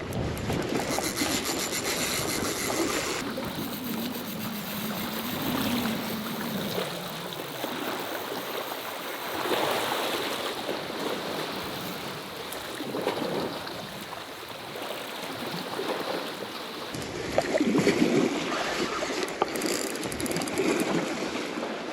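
Sea waves washing and surging against shore rocks, swelling and falling several times, with wind noise on the microphone.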